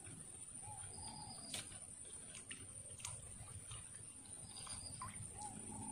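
A bird calling faintly: a short rising-and-falling call about a second in, repeated near the end, with a few soft clicks in between.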